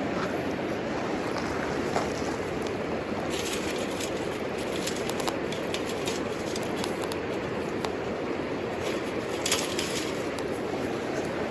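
Wood burning in a homemade wood stove, crackling and popping with scattered sharp snaps that bunch up about three to five seconds in and again near nine and a half seconds, over a steady rushing noise.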